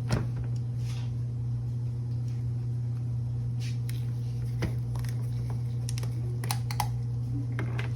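A 2012 Lexus RX 350's V6 engine idling with a steady low hum, and a few light clicks and knocks.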